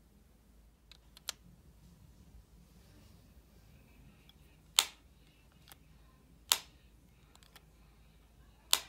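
Apple AirPods Pro charging case lid clicking shut and open. Three sharp clicks come roughly two seconds apart, with a fainter click earlier and a few light ticks of handling in between.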